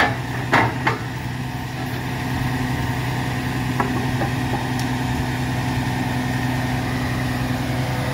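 Diesel engine of a grapple truck running steadily to drive the hydraulic boom, getting a little louder about two seconds in as the rail is lifted and swung. A few sharp metal clanks in the first second as the grapple closes on a stick of rail.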